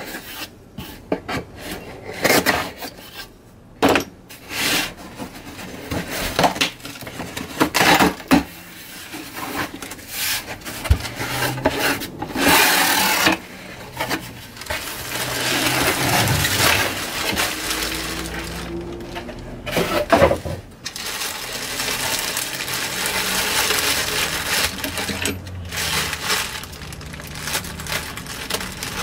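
Unpacking sounds: cardboard box flaps and packing tape handled with a run of scrapes and knocks, then long stretches of plastic-bag crinkling as the wrapped mask is lifted out and the bag is cut with scissors.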